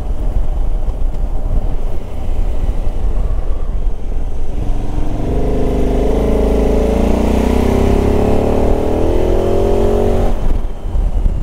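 Touring motorcycle engine accelerating under a steady low rumble of riding noise. About halfway in its pitch rises steadily, then drops away about a second before the end.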